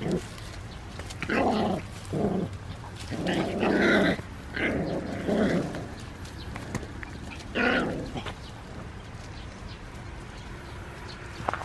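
San'in Shiba puppies growling in short, rough bursts as they play-fight, a growl every second or so, stopping about eight seconds in.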